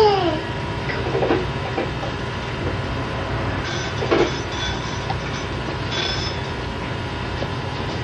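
Steady hum and hiss, with a small child's high squeal trailing off in pitch at the very start and a few faint brief knocks after it.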